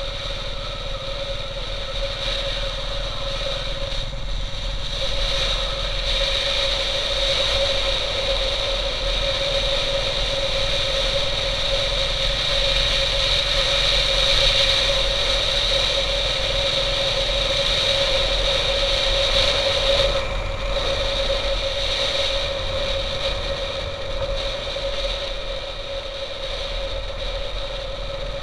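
Motorcycle engine running at a steady cruising speed, with wind rushing over the helmet-mounted microphone.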